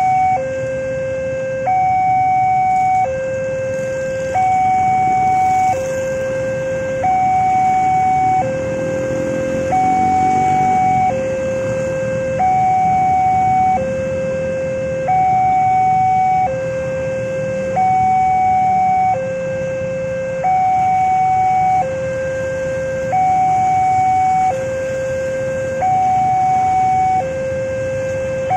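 Railroad crossing warning alarm sounding its electronic two-tone signal, alternating steadily between a low and a high tone about every second and a quarter, the higher tone louder, while the barrier is down for an approaching train. Idling motorbike and car engines run underneath.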